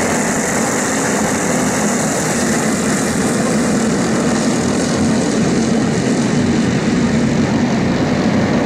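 Small engines of several racing go-karts running together in a steady, unbroken buzz.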